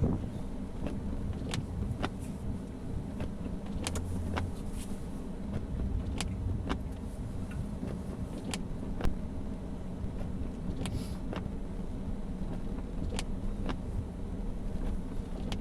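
Van engine idling steadily just after a hard start on a weak battery, with scattered light clicks.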